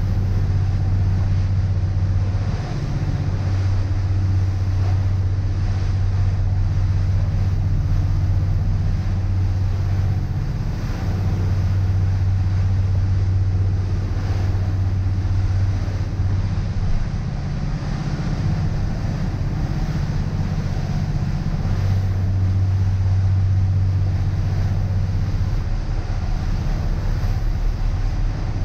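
Motor cruiser underway at cruising speed: a steady low engine drone that swells and fades every few seconds, with rushing wind and water.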